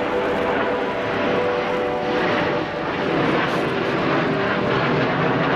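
Formation of F-16 Fighting Falcon fighter jets flying past, a loud, steady jet noise.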